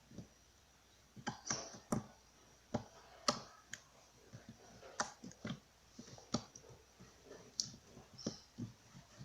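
Slime being kneaded and squeezed by hand, giving irregular sharp, sticky clicks and pops, about two a second.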